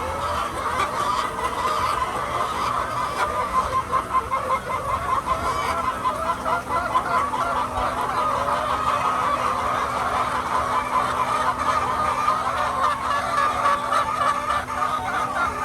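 A large flock of laying hens clucking and chattering continuously, many birds calling over one another.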